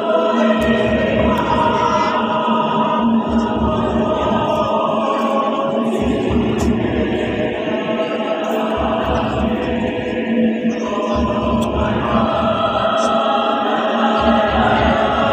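A large choir singing in harmony, holding sustained chords.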